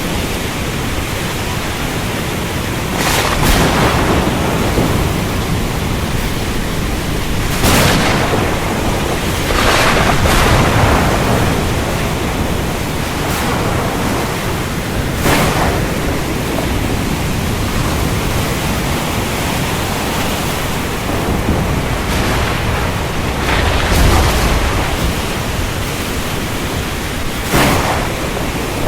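Steady heavy rain in a thunderstorm, with about six short, sharp claps of thunder scattered through it.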